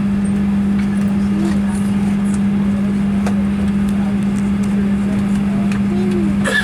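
Steady hum inside a Boeing 737-900ER cabin at the gate, with one constant low drone, and faint passenger chatter and a few small clicks over it. A louder knock comes near the end.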